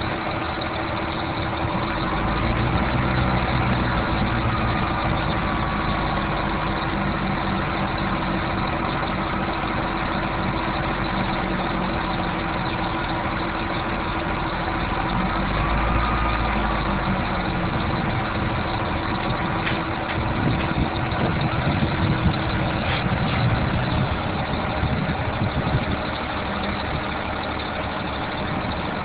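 Farm machinery engine running steadily during corn silage harvesting, a continuous drone with a steady hum and a low rumble that swells now and then.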